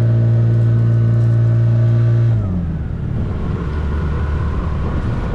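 Boat's outboard motor running at a steady pitch, then throttling back about two seconds in, its note sliding down into a rougher, lower sound.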